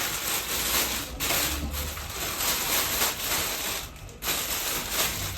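Rustling and clicking of items and their packaging being handled, in short irregular bursts.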